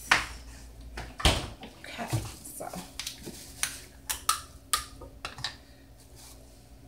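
Kitchen handling noises as water is fetched from the refrigerator: a knock, a heavy thud about a second in, then a run of short sharp clicks and crackles, like a plastic water bottle being handled.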